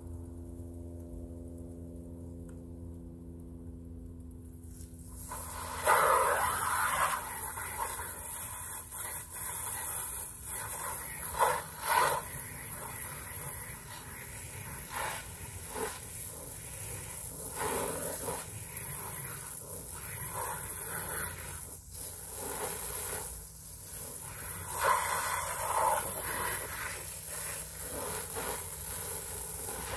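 Water hissing from a garden hose spray nozzle onto a fabric yurt window panel, starting about five seconds in and swelling and dipping as the spray moves. Before it, a steady low hum.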